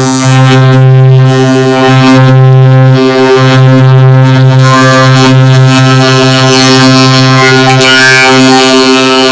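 Loud, heavily distorted electronic drone from an audio-effect edit: a steady low buzzing tone with many stacked overtones and a harsh upper hiss, briefly dipping a few times.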